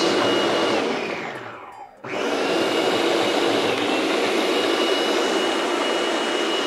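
Electric food processor chopping a green pepper mixture: the motor runs with a high whine, spins down to a stop about two seconds in, then starts again at once and runs steadily.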